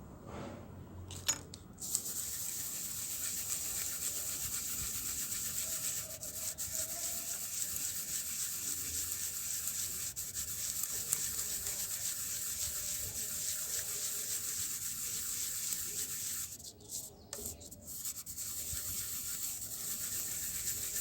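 Hair clipper blade being rubbed back and forth on an abrasive sharpening surface: a steady hiss that starts about two seconds in and breaks off briefly near the end. The blade's teeth are being honed down to one flat level.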